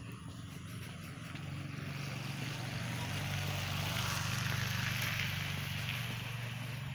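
A motor vehicle passing. A low engine hum and a hiss of road noise swell to a peak about two-thirds of the way in, then fade.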